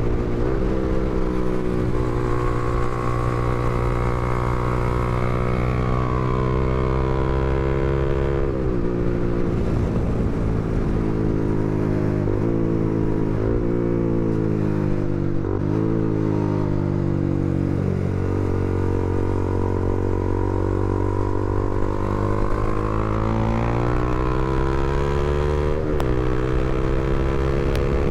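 Honda CBR300R's single-cylinder engine running under way. It holds steady revs, then the revs fall in a few steps with brief jumps in between, climb again, and drop sharply with a shift near the end.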